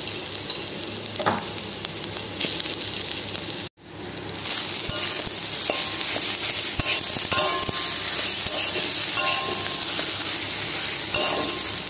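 Chopped onions and mashed boiled potato sizzling in oil in a metal kadai while a metal spatula stirs and scrapes them against the pan. The sound cuts out for an instant just under four seconds in, then the sizzle returns louder.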